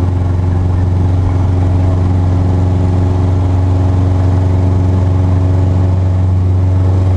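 Cessna Cardinal's four-cylinder piston engine and propeller running steadily, a loud, even drone with a deep hum, heard from inside the cockpit.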